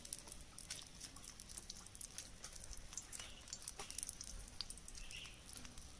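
Faint, scattered crackles and ticks of a wood fire and of oil frying under a banana-leaf parcel in a small pan.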